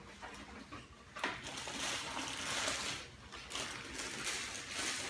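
Rustling and scraping of packaging as a box is opened and the carrying bag inside is pulled out and unwrapped, in irregular stretches.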